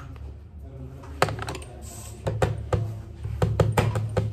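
Irregular sharp clicks and taps from makeup tools and cases being handled, starting about a second in and coming thick and fast in the second half, over a low steady hum.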